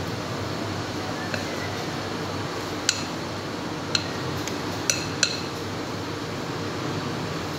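A spatula clinking against a glass mixing bowl as thick cake batter is scraped out into a baking tin. There are four sharp, ringing clinks, the last two close together, over a steady background hum.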